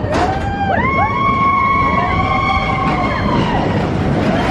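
Several roller coaster riders screaming in long held, overlapping cries at different pitches, each sliding down at its start and then holding steady, over the low rumble and wind noise of the moving ride.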